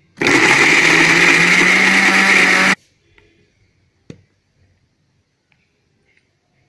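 Electric mixer grinder (mixie) blending boiled carrots. It runs for about two and a half seconds, its motor pitch rising slightly as it picks up speed, then stops suddenly. A single knock follows about four seconds in.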